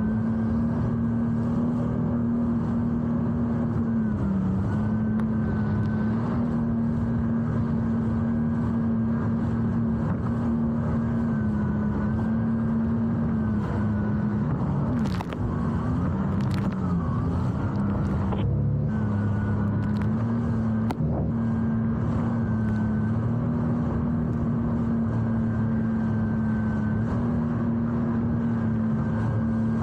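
Jet ski engine running steadily at one pitch, dipping briefly a few times as the revs drop, with a few sharp knocks about halfway through.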